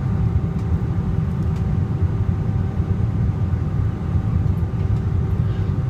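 Steady cabin noise inside a Boeing airliner in flight on its approach: a low rumble of the engines and airflow, with a faint steady hum above it.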